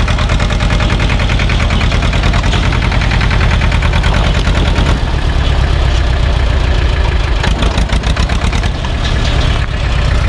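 SAME tractor's diesel engine running steadily under load as it pulls a trailer over the stony edge of a stream bed.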